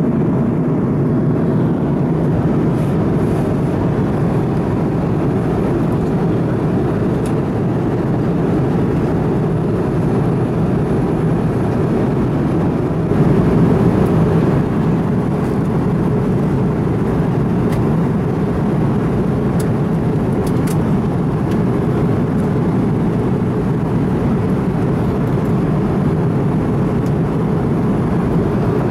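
Steady cabin roar of an Airbus A330-200 in cruise flight, the engine and airflow noise heard from a window seat, with its weight low down. There is a short swell in level about halfway through.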